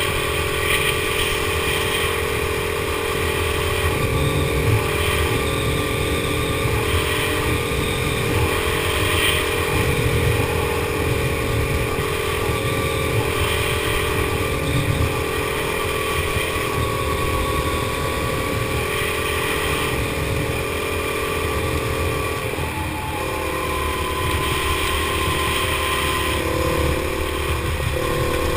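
Go-kart engine running at speed, heard from onboard the kart, holding a steady pitch that dips and picks up again a couple of times in the last few seconds as the kart slows for corners and accelerates out.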